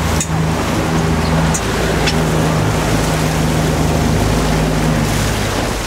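Motorboat engine running steadily at low speed, with wind and water noise over it; the engine note drops away near the end.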